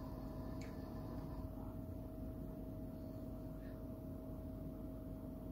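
Steady background hum and hiss of room noise with a constant mid-pitched tone, like a running appliance, and two faint clicks.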